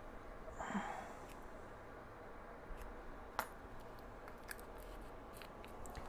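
Faint handling sounds at a repair bench: a brief rustling scrape about a second in, then a few small clicks, the sharpest one about halfway through, over a low room hum.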